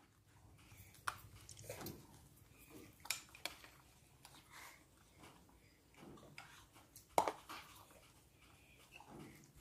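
Faint, scattered clinks and taps of a drinking glass and dishes, with a sharper click about seven seconds in, as a baby monkey drinks water from a small glass held to its mouth.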